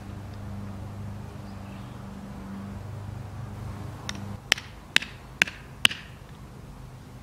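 A low, steady engine-like hum for the first few seconds. Then five sharp clicks or knocks with a short metallic ring come in quick succession, about half a second apart, between four and six seconds in.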